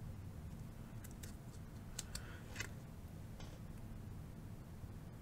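Faint clicks and light scrapes of a foil Magic: The Gathering card being handled and flipped over in the fingers, a handful of small ticks over a low steady room hum.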